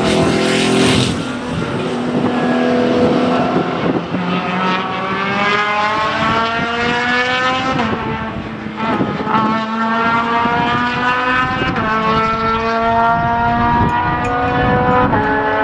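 Racing car engines at full throttle. A car rushes past close by at the start, then an engine note climbs steadily in pitch and drops back at each upshift, about every four seconds.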